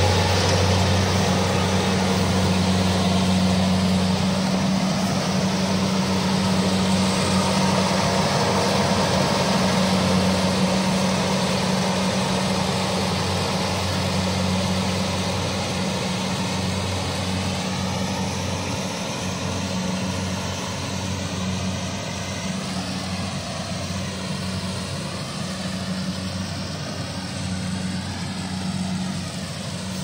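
Kubota DC-70 combine harvester working: its diesel engine runs at a steady hum under the rushing noise of the threshing and grain-handling works, growing gradually fainter through the second half.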